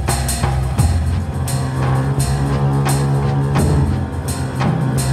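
Background music: a dramatic score with sustained low notes and a steady drum beat.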